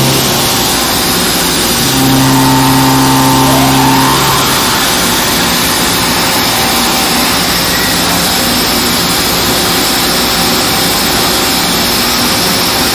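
OKK HM-100S horizontal machining center cutting a part under flood coolant: a steady hiss of coolant spray and cutting. A low hum comes in about two seconds in and drops out near four and a half seconds, with a short rising whine just before it stops.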